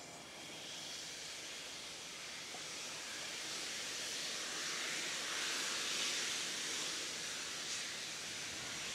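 Steam hissing from the open cylinder drain cocks of Victorian Railways J class steam locomotive J549, which clears condensed water from the cylinders as it gets ready to move off. The hiss is steady with no exhaust beats, growing louder to a peak about halfway through and easing slightly toward the end.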